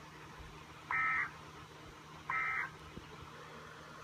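Two short bursts of Emergency Alert System SAME digital data tones, about a second and a half apart, over faint radio hiss: the end-of-message code that closes the alert.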